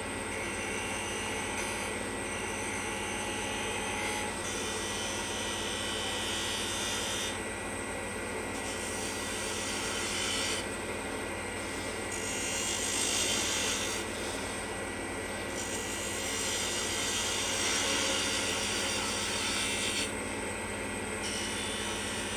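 Wood lathe running with a steady motor whine while a hand-held turning tool cuts the spinning wooden finial, a hissing scrape that comes in passes of a few seconds with short breaks between them.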